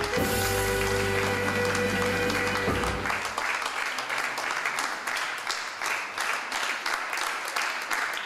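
Music with held tones and a bass line stops about three seconds in, and audience applause carries on after it.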